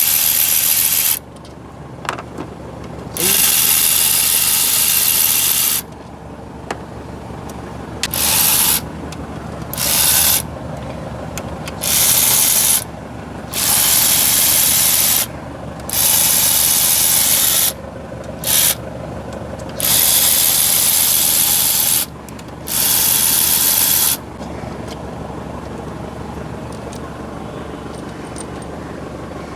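A loud hiss in about ten sharp on-off bursts, each from a fraction of a second to about two and a half seconds long, over a steady low hum.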